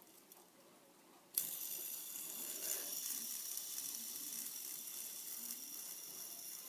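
Yellow three-armed fidget spinner with small beads in its arms flicked about a second and a half in, then whirring steadily at high speed on its bearing.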